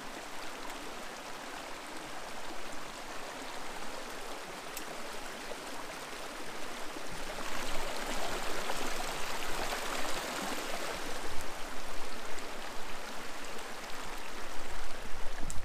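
Shallow mountain stream rushing and splashing over rocks, heard close up; it grows louder about halfway through.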